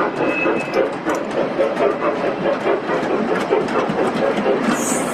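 Model train running on an exhibition layout, a steady rumble with a dense run of small clicks from the wheels on the track.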